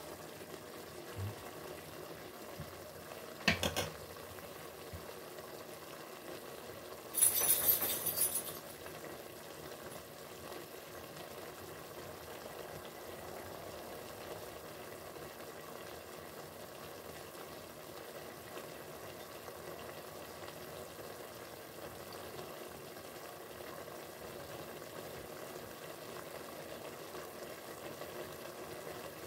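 Pork adobo with broccoli and green beans simmering in a stainless steel pot near the end of cooking: a steady, quiet bubbling and sizzle. A short knock comes about three and a half seconds in, and a louder metallic clatter lasting a little over a second comes about seven seconds in.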